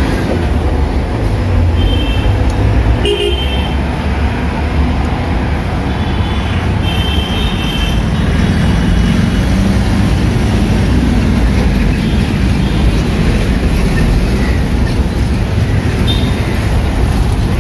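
Loud city road traffic: vehicle engines running past under a steady low rumble, with horns honking briefly several times.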